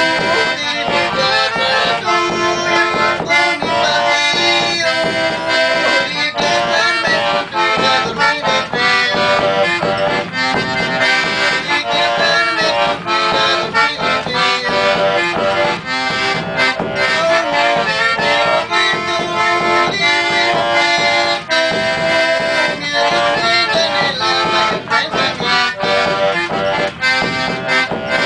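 Button accordion played solo: a Chilote country folk tune, with melody and bass notes sounding together without a break.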